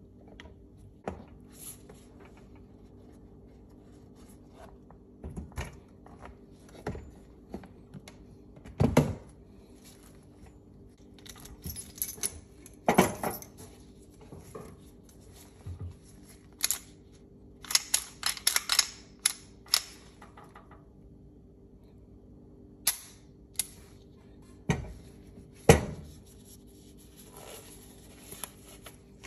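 Handling noise from a hard plastic pistol case being opened and a Tanfoglio Stock II pistol being lifted out and handled on a cloth-covered table: scattered clicks, knocks and rattles with a few louder knocks, over a steady low hum.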